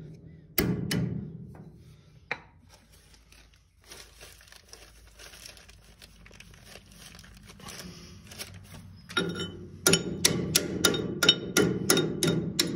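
Hammer blows on a steel shaft and bearing of a straw reaper. There is one ringing knock near the start and faint scraping in the middle, then a fast run of metal taps, about four a second, from a little before the end.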